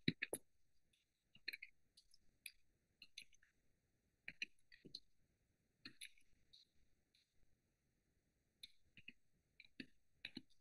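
Computer keyboard keys being typed: faint, sharp clicks in short irregular runs, with a pause of about two seconds after the middle.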